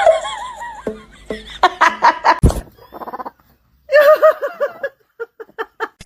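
A person laughing in quick, repeated bursts, in two or three fits with short pauses between them.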